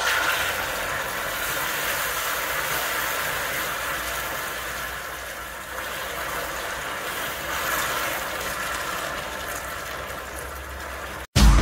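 Molten caramelized sugar in a steel saucepan sizzling and boiling up hard as a cup of water is poured in slowly, a loud steady hiss that starts suddenly with the pour. This is the water being worked into the caramel to make a caramel syrup.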